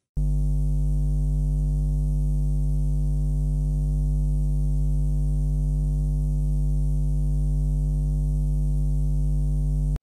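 Electrical hum sound effect: a steady, unchanging low buzz that starts abruptly.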